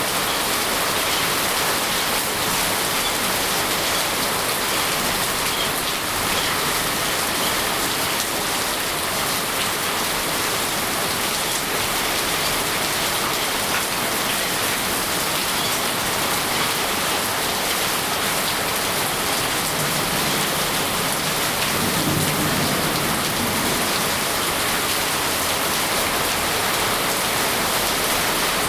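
Steady, even rushing noise of the kind heavy rain makes. A low rumble swells briefly about twenty seconds in.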